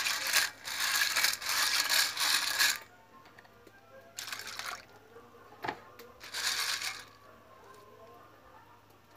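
Freshwater clams (tulya) being scrubbed by hand in water in a metal basin: the shells rattle and clink against each other in one long bout, then in two shorter bursts with a single sharp click between them.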